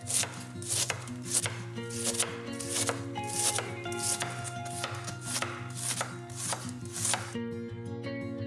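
Chef's knife shredding white cabbage on a wooden cutting board, each slice ending in a knock on the board, about two strokes a second. The cutting stops about seven seconds in.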